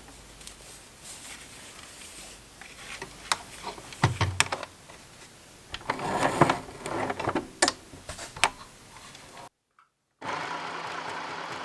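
Paper and craft materials handled on a desk: rustling, crinkling and sharp taps and clicks. After a sudden cut there is a steady mechanical whir near the end.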